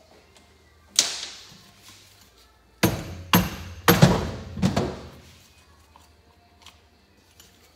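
Mallet blows on a Honda Shadow VT1100's bevel gear housing, knocking it loose from the crankcase: five sharp knocks, one about a second in and four in quick succession around the middle.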